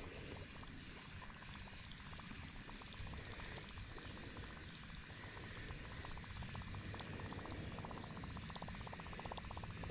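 Insects trilling in a steady, unbroken high chorus.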